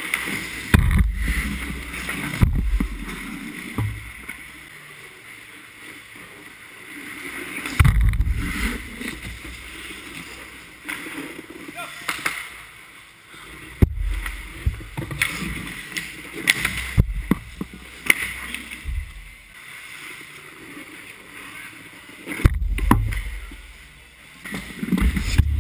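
Ice hockey play heard from inside the goal: sharp clacks of sticks and puck, skate blades scraping the ice, and runs of low thuds close to the net as the goalie moves and drops. Players' voices call out now and then.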